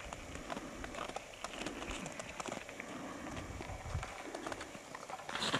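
Footsteps on snow-dusted river ice: irregular crunching steps with scattered light clicks and a few dull low thumps.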